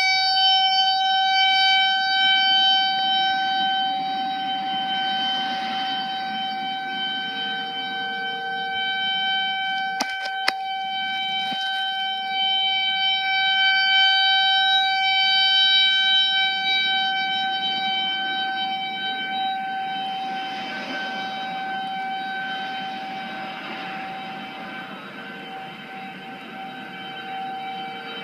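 Whelen outdoor tornado warning siren sounding a steady, unwavering tone during a test, its loudness swelling and fading slowly. There are a couple of brief clicks about ten seconds in.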